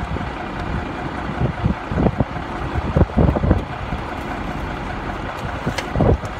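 Heavy truck engine running steadily at idle, with gusts of wind buffeting the microphone now and then.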